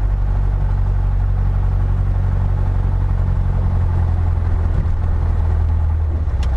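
Piper PA-28-161 Warrior's four-cylinder Lycoming engine running at low taxi power, a steady low drone that shifts slightly in tone near the end.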